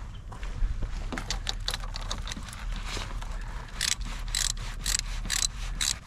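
Hand socket ratchet clicking in short strokes, sparse at first and then about two strokes a second in the second half.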